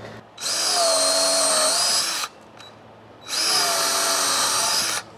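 Cordless drill boring holes into an oak log to take shiitake spawn, run twice for about two seconds each with a short pause between. Its whine dips slightly in pitch partway through each run.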